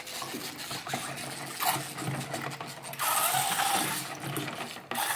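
Clockwork wind-up toy mechanism running with a fast whirring, clicking sound, with a louder splashy hiss of water from about three seconds in.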